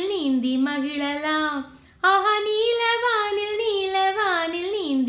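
A woman singing a Tamil children's rhyme unaccompanied, in a clear high voice, with a short break about two seconds in before the phrase starts again.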